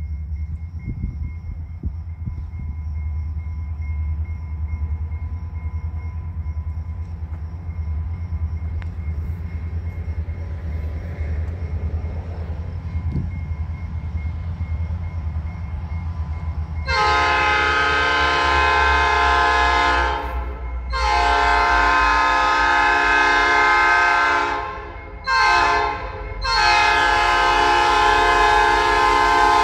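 Approaching diesel freight locomotive, a low rumble at first, then its multi-note air horn sounding the grade-crossing signal about halfway through: two long blasts, a short one, and a final long blast that is still going at the end.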